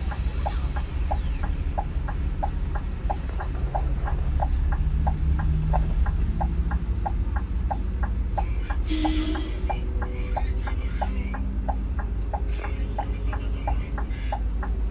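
Scania coach cabin: a steady low engine and road rumble, with a sharp ticking about three times a second throughout and a short hiss about nine seconds in.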